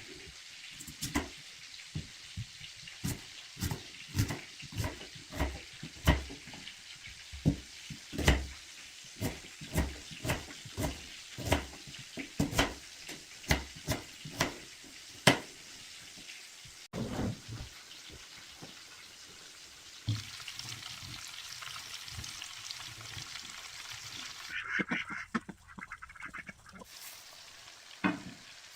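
Food frying in a pan with a steady sizzle. For the first half it is stirred, with frequent sharp knocks of a utensil against the pan, and the sizzle carries on after the knocks stop.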